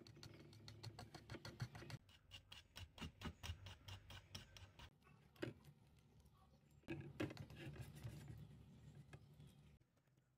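Metal wire whisk beating eggs and flour into batter in a wooden bowl: faint, rapid ticking of the wires against the bowl, in several quick runs with short breaks between them.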